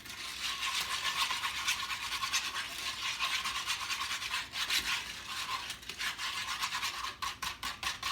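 Eggs being beaten with a fork in a bowl: quick scratchy whisking strokes, about six a second, that grow more distinct near the end.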